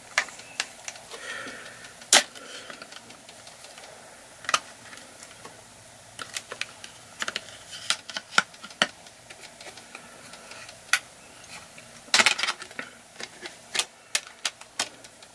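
Plastic back cover of a BLU R1 HD phone being pressed on by hand, its clips snapping into place in a string of irregular sharp clicks, with a quick cluster of clicks about twelve seconds in.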